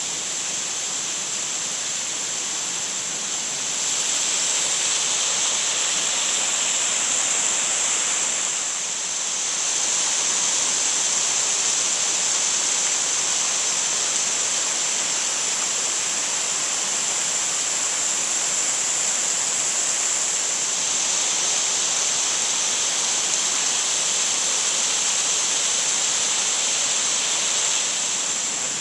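Shiraito Falls, a wide, low curtain of many thin streams of spring water, makes a steady rush of falling water. It grows a little louder a few seconds in.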